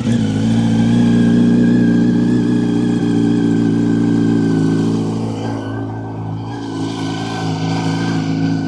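2006 Yamaha R1's inline-four engine, just fired up, idling steadily through an aftermarket exhaust fitted with two baffle inserts, easing slightly lower about five seconds in. The baffles make it better, but it is still too loud for inspection.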